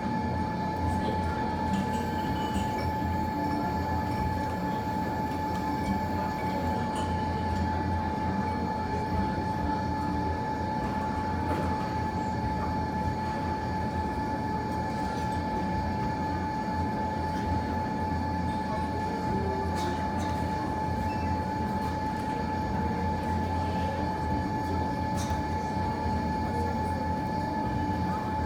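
Steady mechanical hum with a constant high whine running underneath it, and a few faint ticks.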